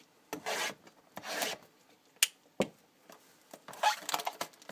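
Trading cards being handled and slid against each other: two short swishes, a couple of sharp taps, then a quick flurry of rubbing near the end.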